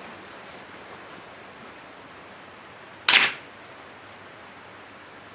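A single shot from a Thureon Defense 9mm pistol-caliber carbine about three seconds in, over a steady hiss.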